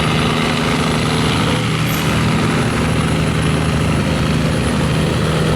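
Diesel engine of a large loaded river barge running hard at full throttle, a loud steady drone with a constant low hum.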